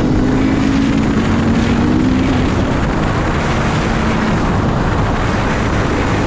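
Motorcycle on the move: a steady engine note under loud, constant wind and road noise.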